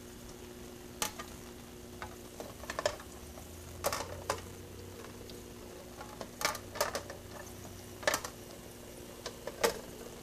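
A hand handling a small aquarium tank and its lid: scattered sharp clicks and taps at uneven intervals, over a steady low hum.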